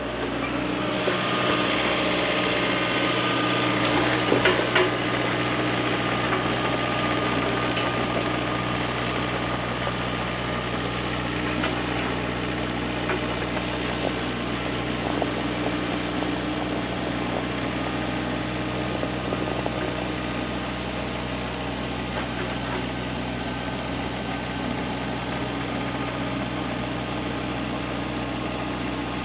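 Heavy equipment engine running steadily, a little louder over the first few seconds, with a few short knocks about four to five seconds in.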